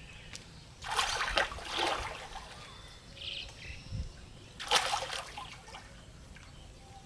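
Water splashing in two bursts, about a second in and again around five seconds in, as a person floating in a pond shifts in the water. A short bird chirp sounds between them.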